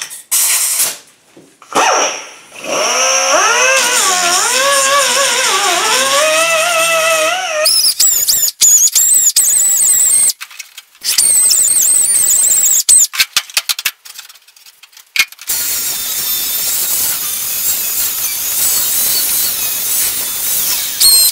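Power tools grinding rivets and cutting the sheet-metal dash. First a squeal that wavers up and down in pitch for several seconds, then a high, wavering whine, and in the last few seconds a steady hiss of grinding, with short stops in between.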